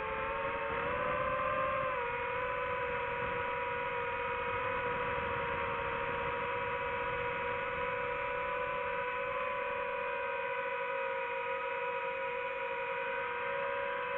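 FPV quadcopter motors and Gemfan Hurricane 5236 propellers whining in flight. The pitch climbs over the first two seconds, dips slightly, then holds nearly steady at cruising throttle.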